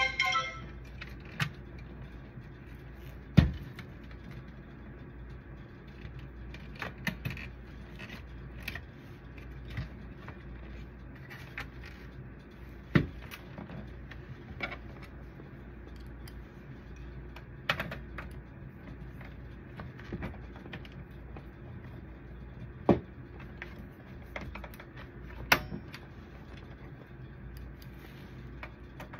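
Hard plastic parts of a copier drum unit clicking and knocking as it is handled and put back together: scattered small clicks, with a few sharper knocks spread through.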